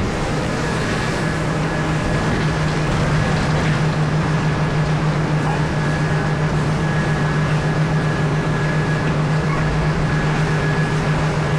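Heavy mining machinery's diesel engine running steadily at constant speed, a deep even hum with a faint high whine above it.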